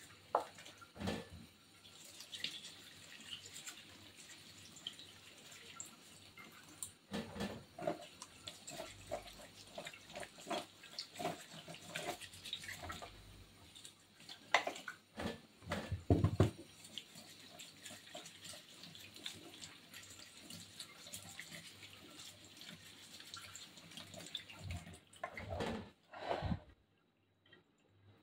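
Kitchen tap running into a stainless steel sink full of tomatoes, with uneven splashing as the tomatoes are rubbed clean by hand under the stream. The water stops near the end.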